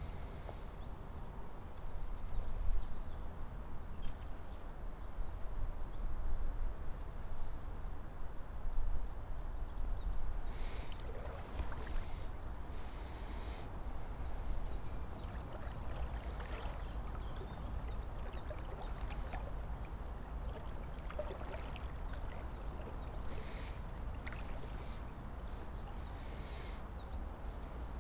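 River water flowing and sloshing around an angler's legs as he wades, with a steady low rumble.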